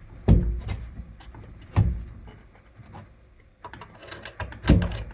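Three sharp metal knocks, with lighter clicks and rattles between them, as car parts and tools are handled and refitted in the engine bay.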